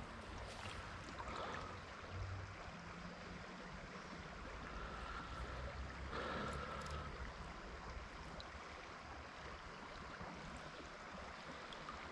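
Faint, steady rush of flowing river water, with a few light clicks about six to seven seconds in.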